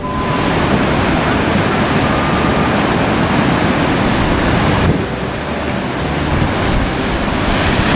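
Strong sea waves surging and breaking against coastal limestone rocks, a loud steady wash of surf noise.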